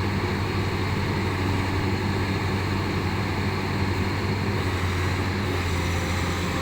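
Backhoe's diesel engine running steadily, a low even hum with no change in speed.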